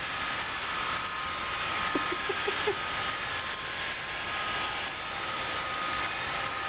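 Roomba robot vacuum running: a steady whirring hiss with a faint high whine. A few short, faint pitched sounds come about two seconds in.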